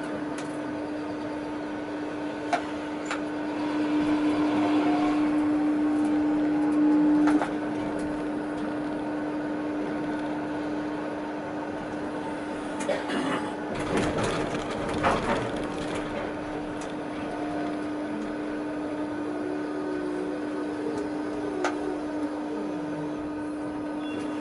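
Tatra T6A5 tram heard from inside the driver's cab while running and then slowing almost to a stop. A steady electrical hum runs throughout; it grows louder for a few seconds and drops back sharply about seven seconds in. Knocks and rattling come around the middle, with a few single clicks.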